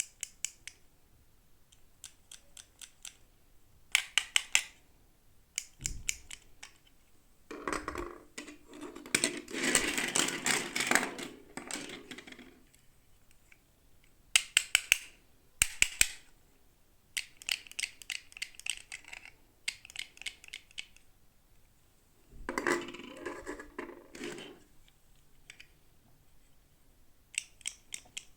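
Hands unboxing toy packaging: clusters of sharp clicks and taps, with two longer stretches of crinkling and rustling, the first and longest about a third of the way in.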